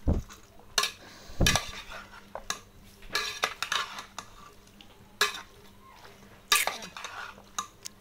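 Metal slotted spoon stirring pieces of goat intestine and vegetables in an aluminium pot, with irregular scrapes and clanks of metal on metal.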